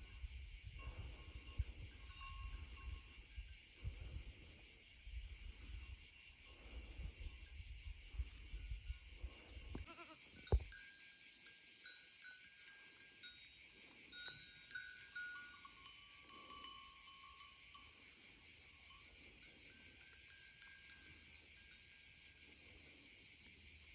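Goats bleating now and then over a steady chorus of insects. In the first half there is a low rumble with small knocks, and a single sharp knock about halfway through.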